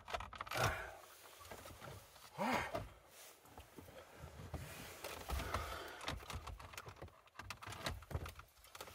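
Opel Insignia's plastic dashboard trim being worked loose by hand from its stiff clips: a run of small clicks and rattles, with two louder creaks or scrapes about half a second in and about two and a half seconds in.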